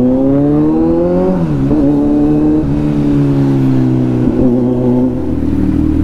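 Kawasaki Z900's inline-four engine under way, its note rising as the bike accelerates. About a second and a half in the pitch drops sharply with an upshift, then it runs on with a slowly falling note and another brief dip near the end.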